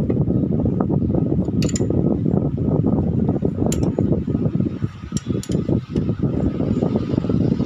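A few light metallic clicks and clinks from a wrench on the camshaft bearing cap bolts of an open cylinder head, over a steady low rumbling background noise that is louder than the clicks.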